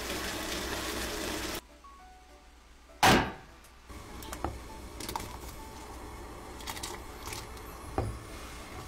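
Cooking sounds over soft background music. A pan of stir-fry sizzles as it is stirred, then stops; about three seconds in comes one loud thunk. It is followed by scattered knife-and-board clicks around chopped vegetables, and a thump near the end as a wooden lid is set on an earthenware pot.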